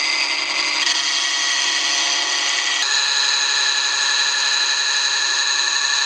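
Hand-held turning tool cutting into a spinning segmented walnut-and-skateboard blank on a wood lathe: a loud, steady, high cutting tone that shifts in pitch about a second in and again about three seconds in.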